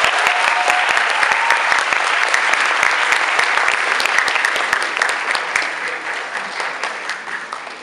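Audience applauding: dense clapping from a large crowd, gradually dying down near the end.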